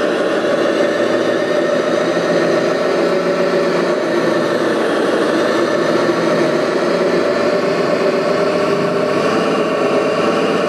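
Radio-controlled construction machines running, with a steady engine sound that holds its pitch.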